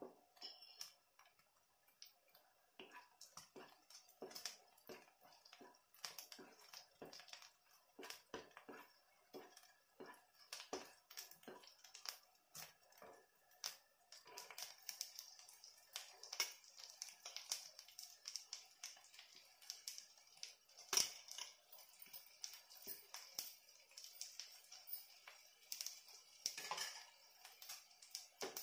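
Paneer and capsicum frying in oil in a nonstick kadai: scattered crackles and pops. About halfway, as chopped onion and carrot go in, a steady sizzle sets in.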